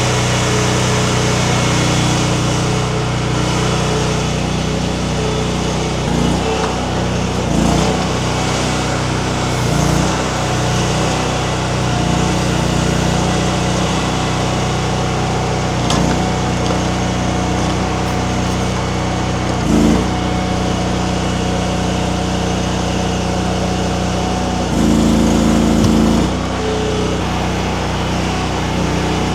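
Mini skid steer engine running steadily under hydraulic work, with short swells in load every few seconds and a louder, higher-pitched stretch of about a second and a half near the end.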